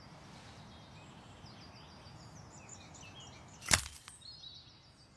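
A single sharp snap of a Twix bar being bitten into, about three and a half seconds in. Faint birds chirp in the background throughout.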